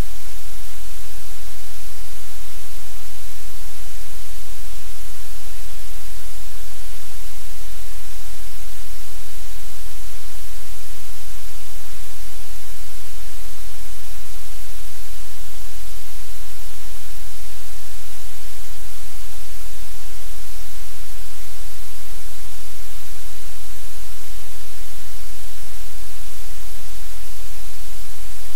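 Loud, unchanging hiss of static with a low hum underneath, a noisy audio feed that covers any sounds in the room.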